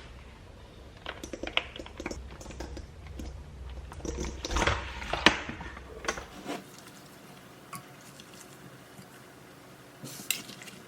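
Kitchen utensils and dishes clinking and knocking, a run of sharp clicks that is busiest in the first half and thins out to a few clicks near the end.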